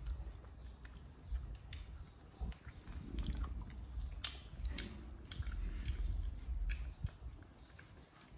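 Baby monkey chewing and biting fruit: irregular wet clicks and crunches over a low rumble.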